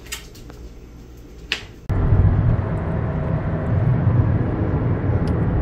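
Steady low road and engine rumble inside a moving car's cabin, starting abruptly about two seconds in. Before it, a quiet room with two faint clicks.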